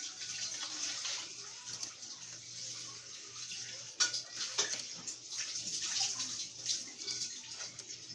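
Laptop keyboard being typed on: a quick, irregular run of key clicks over a steady hiss and low hum.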